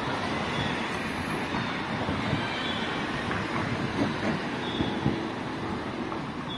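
City street traffic: a steady rush of passing vehicles, with a few dull thumps in the middle.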